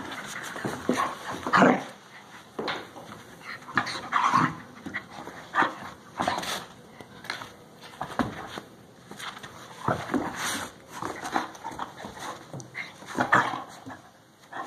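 A small Maltese and a larger hound play-fighting, with short, irregular dog vocal sounds coming about once a second, loudest about a second and a half in.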